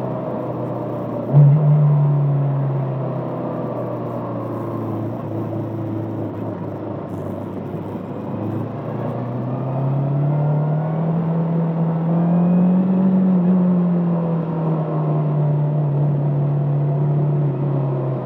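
Bristol Venturi 500 motorcycle engine running on the move, with a sudden burst of throttle about a second and a half in. Later its pitch rises slowly as it accelerates, then falls gradually as the throttle eases.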